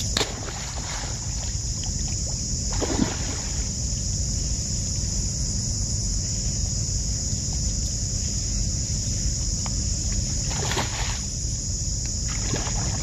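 Steady high-pitched insect drone over a low wind rumble on the microphone, with a few brief swishing sounds: one about three seconds in and two near the end.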